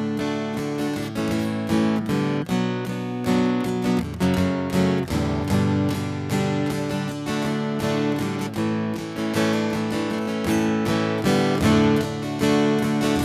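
Instrumental music played on a strummed acoustic guitar, with a steady run of chords.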